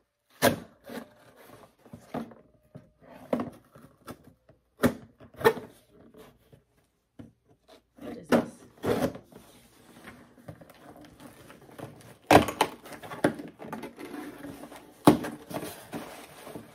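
A package being opened and handled by hand: a series of sharp knocks and clicks, with rustling of the packaging in the second half.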